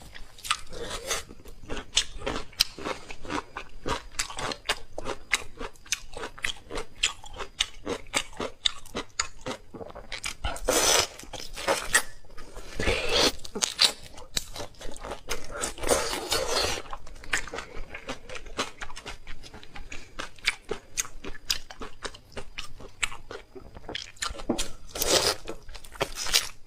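Close-up eating sounds: a person biting and chewing crunchy food with many sharp crunches, swelling into louder spells of crunching several times.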